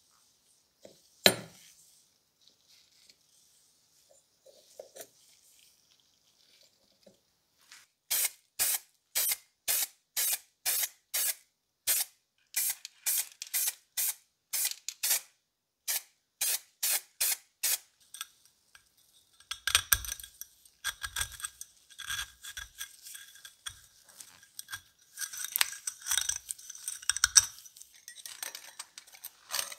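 A single sharp click about a second in, then an aerosol spray-paint can sprayed in a long run of short, evenly spaced bursts, about two a second. After that, irregular scraping and rubbing on a ceramic hotplate element base, with light knocks.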